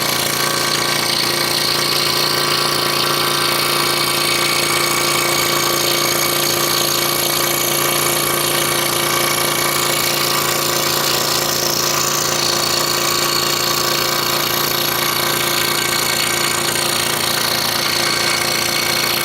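Scroll saw running steadily, its blade stroking up and down rapidly as it cuts a wooden jigsaw puzzle.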